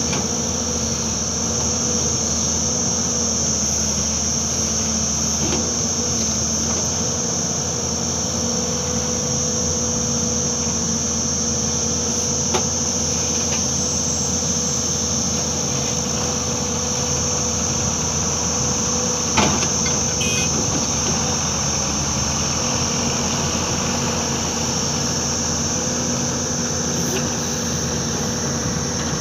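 Hyundai crawler excavator's diesel engine running steadily as the machine works, under a loud, continuous high-pitched insect drone. There is a faint knock about twelve seconds in and a sharper metallic knock about two-thirds of the way through.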